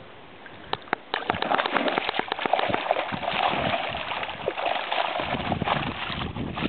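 Water splashing and sloshing as a mesh hoop-net fish trap is hauled out of shallow water, water pouring off the net, starting about a second in.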